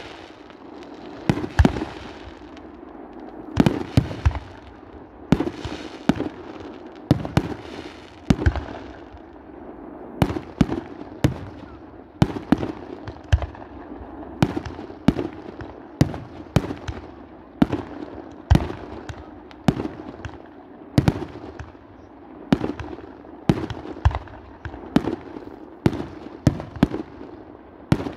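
Fireworks display: aerial firework shells launching and bursting in a continuous barrage, with sharp bangs coming about one to two a second and crackle between them.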